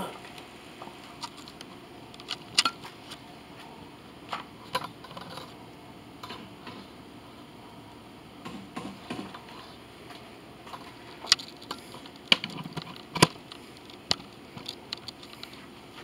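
Irregular clicks and knocks of a handheld camera being carried and handled, a handful of sharper ones coming close together near the end, over a steady low background hiss.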